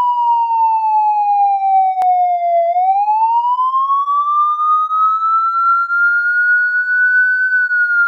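Police siren in a slow wail. A single clean tone falls for nearly three seconds, rises steadily for about five, and starts to fall again near the end. A sharp click sounds about two seconds in.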